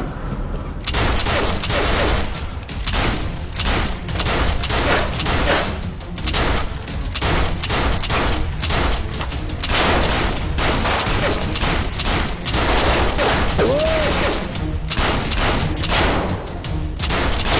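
Gunfight: a dense, unbroken run of handgun shots, several a second and overlapping, with dramatic music underneath.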